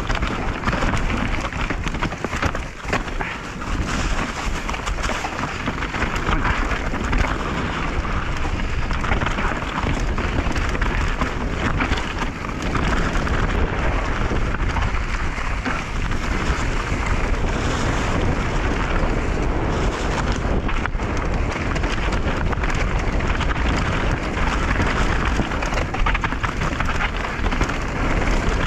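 Mountain bike riding down a rough, rocky trail: a steady rush of wind and tyre noise, with many small knocks and rattles from the bike over the rocks.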